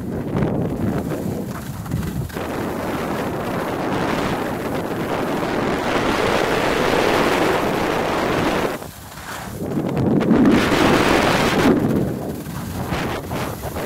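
Wind buffeting a handheld phone's microphone as it moves downhill at skiing speed: a loud, uneven rushing that drops away briefly about nine seconds in.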